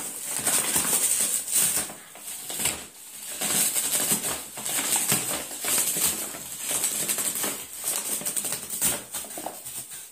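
Bubble-wrap and plastic packaging being bitten and pulled at by a small dog: continuous crinkling and crackling of plastic that comes in uneven surges as the dog tugs.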